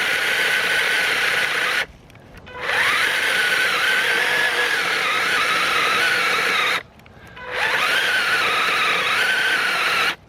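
Worx 20-volt battery mini chainsaw cutting through a tree trunk about five inches thick, its electric motor a steady high whine whose pitch wavers under load. It stops twice briefly, about two and seven seconds in, rising back up to speed each time, and cuts off near the end.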